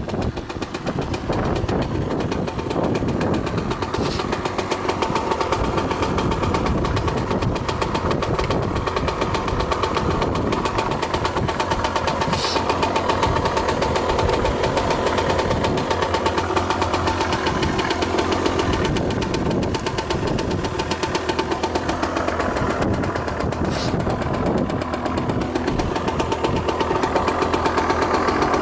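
Kawasaki KSR80's two-stroke single-cylinder engine idling steadily, with three faint clicks along the way; the seller describes the engine as free of abnormal noise.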